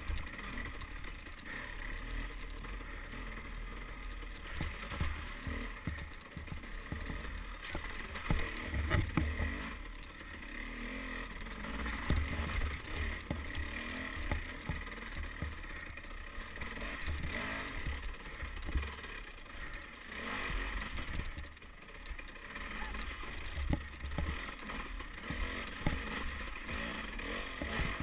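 Dirt bike engine running hard, its pitch and loudness rising and falling with the throttle, with frequent knocks and rattles as the bike hits bumps and roots on the trail.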